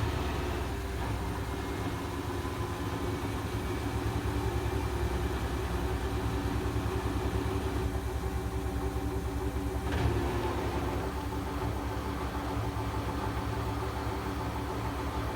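Gorenje washing machine in its final spin cycle: a steady motor hum over a rapidly pulsing low rumble from the turning drum. A brief knock about ten seconds in.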